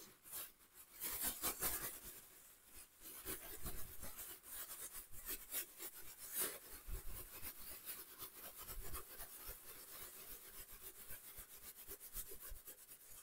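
Thin plastic bag crinkling and rustling as food scraps are shaken and squeezed out of it, faint and uneven, with many small crackles.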